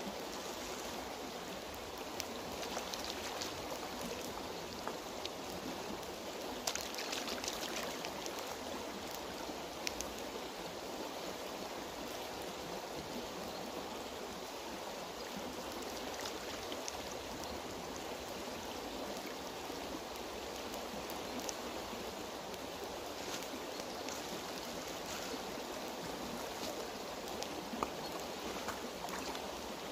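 Shallow river flowing over stones, a steady rush of water, with a few brief splashes as a gutted carcass is rinsed in it.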